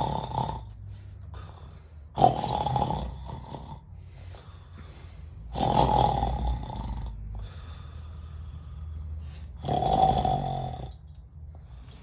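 A person snoring, one snore about every three to four seconds, each lasting about a second.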